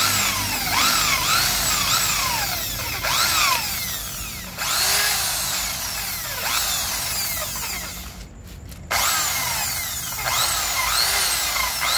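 Corded rotary tool spinning a small steel wire brush against the aluminium cylinder of a Yamaha Sniper 135 engine, scrubbing carbon and gasket residue off its top face. The motor's pitch rises and falls over and over as the brush is worked, with a short break about eight seconds in before it picks up again.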